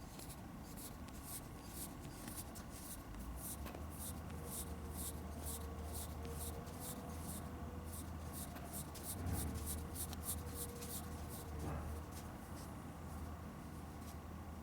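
A steady run of short, scratchy strokes, about three a second, that stops about twelve seconds in, over a low steady hum.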